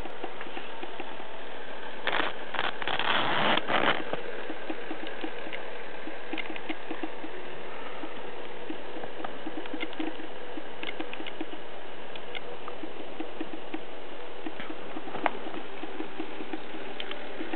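N scale model freight train running on code 40 track: a rapid, even ticking of the small metal wheels over rail joints and switches. A brief louder rustle comes about two to four seconds in, and a single sharp click near the end.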